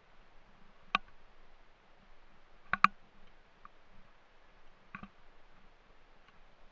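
Hiker walking a rocky meadow trail: soft footfalls under a few sharp clicks, one about a second in, a quick double click near three seconds and a weaker one about five seconds in.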